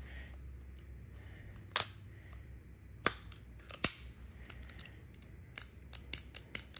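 Ruger LCR .38 Special revolver being dry-fired: sharp metallic clicks from its action, three single clicks spaced about a second apart, then a quicker run of clicks near the end. The trigger keeps locking up in dry fire and only works now and then.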